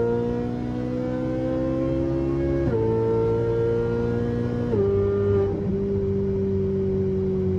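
Ferrari engine with an F1-style exhaust accelerating hard at high revs: the pitch climbs steadily, drops sharply at two upshifts about three and five seconds in, then holds fairly level near the end.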